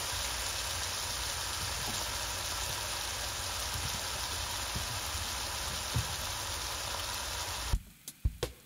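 Vegetables sizzling steadily in a hot skillet, with soy sauce just added. The sizzle cuts off abruptly near the end, followed by a few sharp clicks.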